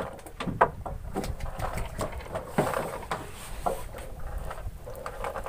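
Handling noise from a spinning reel and rod being gripped and moved on a wooden boat rail: irregular clicks and light knocks, the sharpest about half a second in and again around two and a half seconds in.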